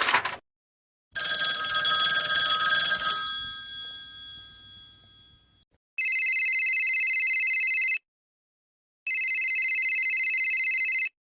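A bright ringing chime of several steady high tones that fades out over a few seconds. It is followed by two rings of an electronic telephone ringtone, each about two seconds long with a fast warble and a short pause between them.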